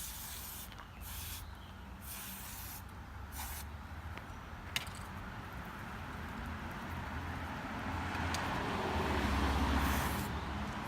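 Aerosol chain lubricant sprayed onto a rusty dirt-bike chain: several short hissing bursts, then one longer spray near the end.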